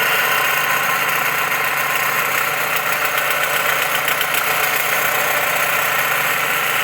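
Dodge engine idling with a steady, loud mechanical racket from a failing alternator, which the mechanic has traced by ear as the main source of the noise. The belt pulleys and the A/C compressor also add noise.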